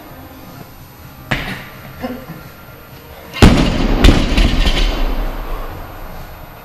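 Loaded barbell with black bumper plates dropped from overhead onto a lifting platform: a loud bang as it lands, a second bang as it bounces less than a second later, then the plates rattle as the bar settles.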